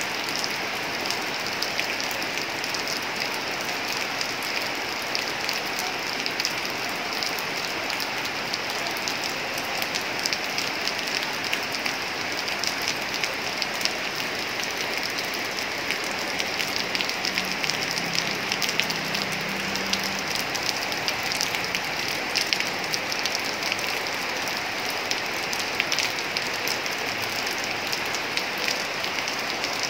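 Heavy rain falling steadily on corrugated metal roofs, a dense even hiss full of the patter of single drops.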